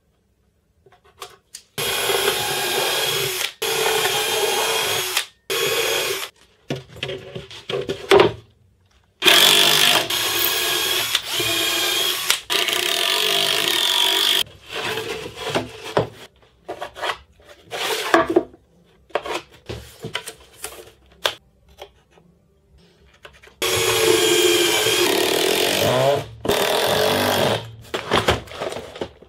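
Cordless drill/driver running in repeated bursts of one to three seconds into plywood panels, with short knocks and clatter between the bursts.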